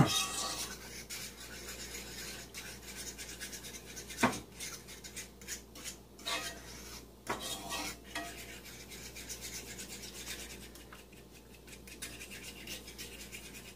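Utensil stirring and scraping through thick roux gravy in a cast iron skillet: a run of irregular scrapes on the pan, a few louder ones around the middle.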